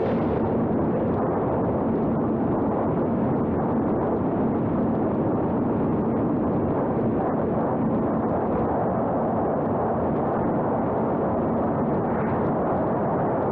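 Steady rushing wind noise on the microphone, with a steady low hum underneath.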